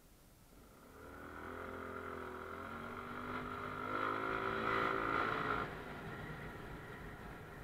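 Motorcycle engine accelerating: its pitch rises, dips about three seconds in, and rises again, loudest just before the throttle is closed sharply about five and a half seconds in.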